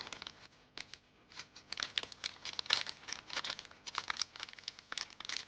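Packaging crinkling and being torn open by hand: a quick, irregular crackle that starts about a second in and keeps going.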